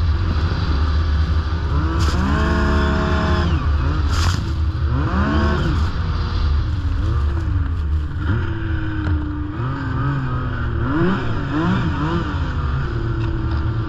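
Yamaha snowmobile engine running under a steady low rumble, its pitch climbing and falling as the throttle is opened and eased off: a long rev about two seconds in, another a few seconds later, and several quick rises and drops near the end.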